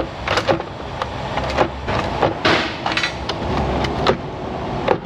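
Irregular metallic knocks and clinks of tools and engine parts being handled as a valve cover and its bolts come off, with one short scrape about halfway through.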